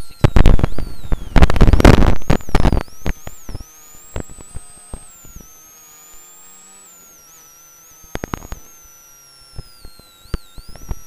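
Rally car intercom line crackling with interference: loud bursts of crackle and static over the first three seconds, then a low hiss carrying a thin steady electrical whine, broken by scattered clicks later on. The crackle comes from a faulty intercom.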